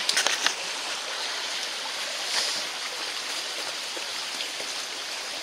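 Steady rush of running water from a stream or meltwater, with a few sharp clicks near the start.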